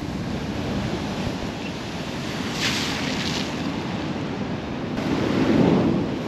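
Rough sea waves washing against a seawall, with wind buffeting the microphone. A brief hiss comes about three seconds in, and a louder surge of water swells near the end.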